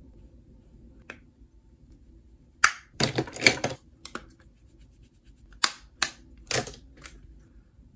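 Plastic makeup compacts and cases clicking open and shut, with a makeup brush tapping and scratching in them close to the microphone. The clicks and taps come in small clusters with short gaps between.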